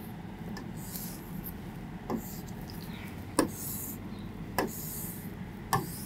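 A stylus on an interactive whiteboard screen as lines are drawn: about four light taps as the pen touches down, each with a short hissing rub as it slides, over a steady low room hum.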